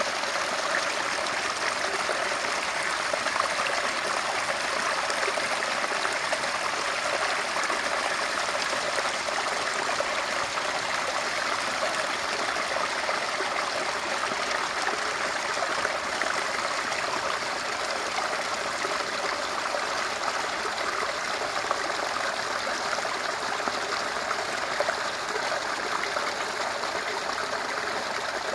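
Small brook running steadily: an even, unbroken rush of flowing water with no pauses or changes.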